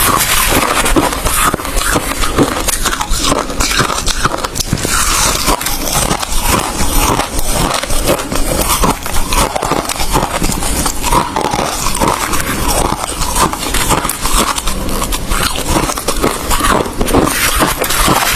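A person chewing ice close to the microphone: continuous loud crunching and crackling as the ice is bitten and ground between the teeth.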